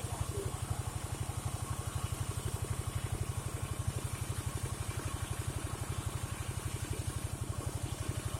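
Engine of a portable sawmill (gergaji slendang) running steadily at an even speed, with a fast regular chugging of roughly ten beats a second.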